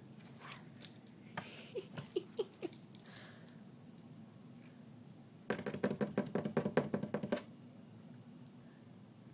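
A cat playing inside a box: light taps and scuffs with a few faint squeaks, then about two seconds of rapid scratching and scrabbling about halfway through.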